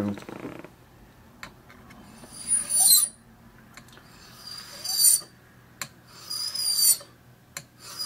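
Impressioning file scraping across a key blank in slow, soft, even strokes: three in turn, with a fourth starting at the end. The file is cutting down the blank at a pin position during impressioning of a padlock key.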